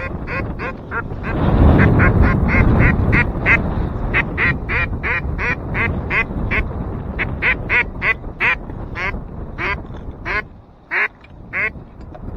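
A long run of short duck quacks, about three to four a second, thinning to a few spaced quacks near the end, over wind buffeting the microphone.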